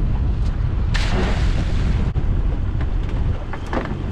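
Heavy wind buffeting the microphone on a small open boat at sea, a constant low rumble, with a few knocks about a second in and near the end, and a splash right at the end as a lobster pot is thrown overboard.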